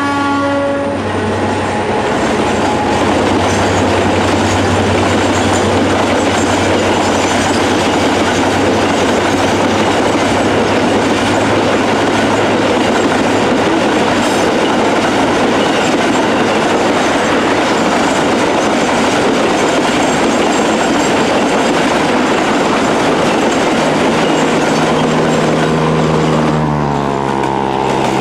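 A loaded garbage container train's freight wagons roll past, a steady rumble with wheel clatter on the rails, and the diesel locomotive's horn dies away about a second in. Near the end a motor vehicle's engine note comes in and drops in pitch.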